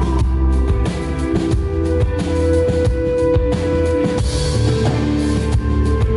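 Live rock band playing a song: a drum kit beat with bass drum and snare under a strong bass line and held melodic notes.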